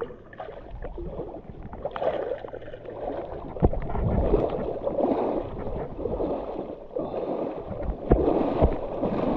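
Water sloshing and splashing around a person wading chest-deep, surging about once a second with each stride, with a few sharp knocks.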